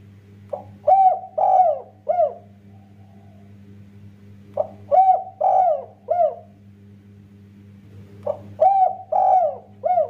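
Spotted dove cooing: three song phrases about four seconds apart, each a short note followed by three falling coos. A steady low hum runs underneath.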